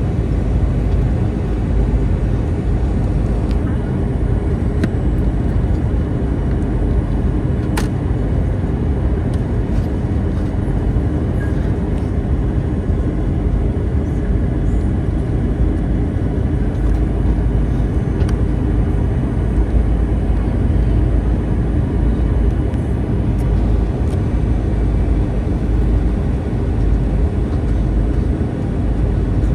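Steady low rumble of an Airbus A321 airliner's jet engines and rushing air, unchanging throughout, with a few faint clicks.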